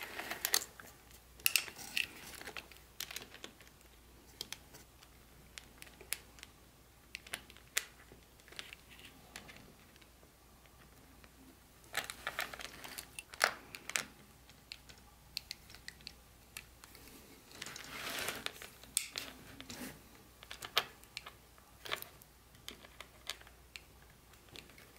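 Irregular small clicks, taps and brief rustles of hands handling small hard parts and packaging.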